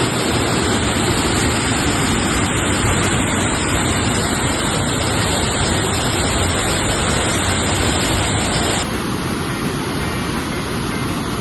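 Mountain river rushing over rocks, a steady loud hiss of water; about nine seconds in it changes to a duller, slightly quieter rush.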